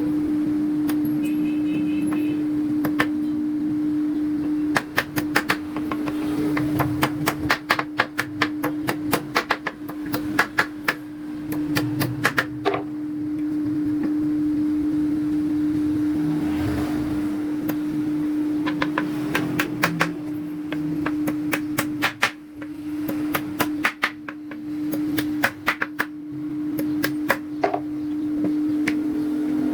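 Sharp knocks on wood in quick runs, like hammering on a workpiece, over a steady, even machine hum.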